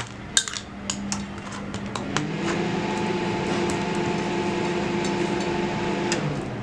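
Metal spoon clicking and scraping against a steel plate while spreading a soft jam and cream-cheese topping over a pizza base. A steady machine hum starts about two seconds in and stops sharply near the end, louder than the spoon.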